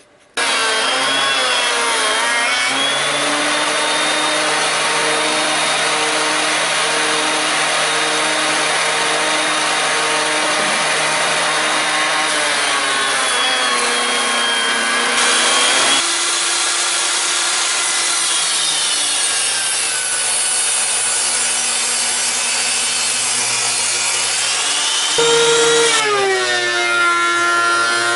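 Electric woodworking machines running and cutting wood in a few spliced shots: a benchtop jointer planing the edge of a board, then a DeWalt thickness planer. The machine sound changes abruptly at about 16 and 26 seconds in.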